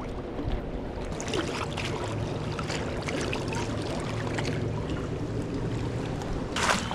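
Steady rush of fast-flowing river water, with scattered small ticks and a short sharp noise near the end.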